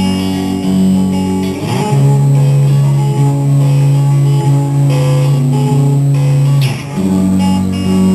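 Guitar playing sustained chords in a song, the chord changing about two seconds in and again near the end.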